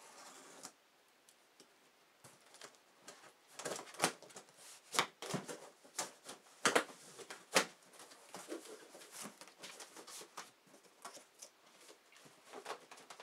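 Large cardboard shipping box being worked open from the bottom by hand: scattered sharp taps, knocks and rustles of the cardboard flaps, busiest in the middle.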